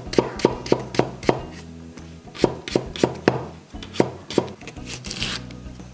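Kitchen knife slicing carrot into thin matchsticks on a wooden cutting board: a run of quick, sharp knocks of the blade on the board, with short pauses between runs, over background music.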